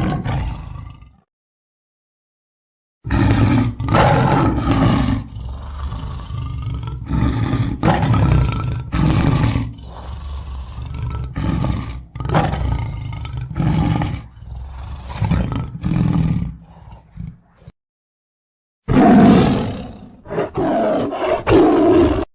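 Lion roaring: a long run of repeated deep roars and grunts, with a brief break and then another bout of roars near the end.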